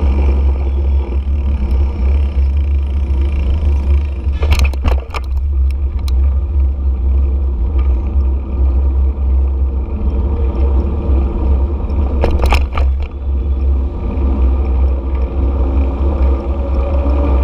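Road noise from a moving vehicle in busy traffic, picked up by a camera mounted on it: a constant low rumble with traffic noise over it. Two brief clattering knocks sound about four and a half and twelve and a half seconds in.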